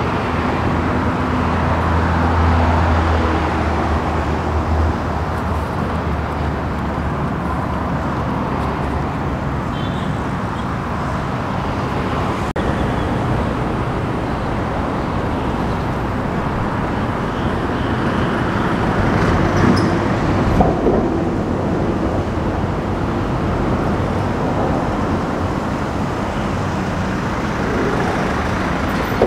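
Steady road-traffic noise from passing vehicles, with a low engine hum that fades out after about seven seconds.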